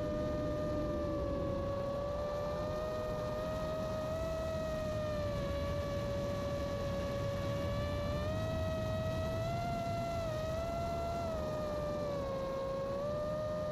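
Drone's electric motors and propellers whining steadily, the pitch drifting up and down a little as the throttle changes, over a low rushing noise.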